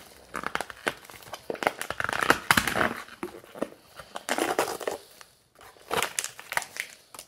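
Clear plastic wrapper on a Maruchan Instant Lunch noodle cup being torn open and peeled off by hand. It crinkles and crackles in irregular bursts.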